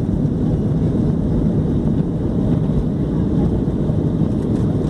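Steady low rumble of airliner cabin noise, engines and airflow heard from inside the passenger cabin.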